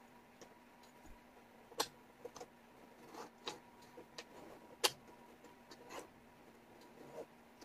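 Wooden jigsaw puzzle pieces clicking and tapping irregularly against each other and the tabletop as they are handled and fitted, with two sharper clacks about two and five seconds in. A faint steady hum runs underneath.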